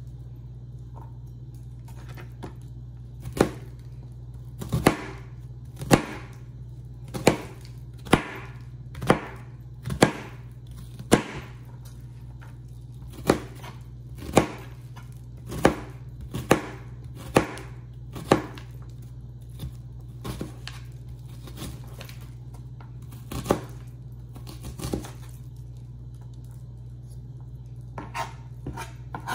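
Chef's knife dicing a yellow onion on a plastic cutting board: single sharp chops about a second apart, growing fewer and fainter after about eighteen seconds, over a steady low hum.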